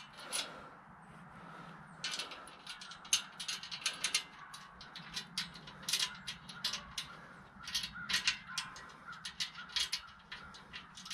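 Scattered light metallic clicks and taps, irregular and a few each second, as hands work a steel C-clamp and thread a nut onto a bolt through a steel hoist bracket.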